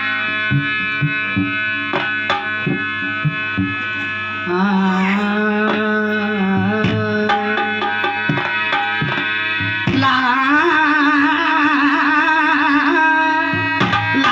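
Qawwali musical introduction: sustained reedy chords with regular hand-drum strokes. About four seconds in, a melody line with wavering pitch enters, and at about ten seconds it grows louder and more ornamented.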